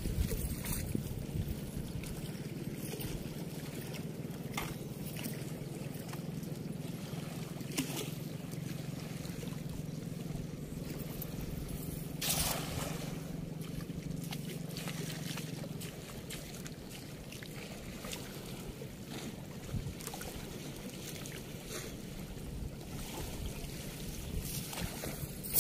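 A hand-thrown cast net landing on the water with one brief splash about halfway through, over a steady low rumble whose hum drops away soon after.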